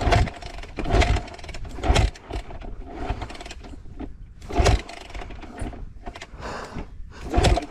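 Enduro motorcycle being kick-started, about five hard kicks on the kickstarter, the engine turning over without catching: it has just been dropped in mud and water.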